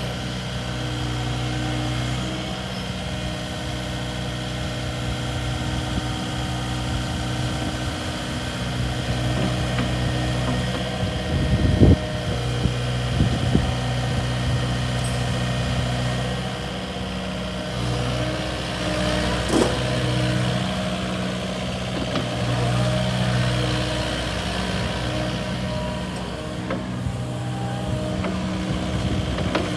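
Diesel engine of a Kubota KX080-4a 8-tonne excavator running, its speed rising and falling a few times. A few sharp knocks come about twelve seconds in and again near twenty seconds.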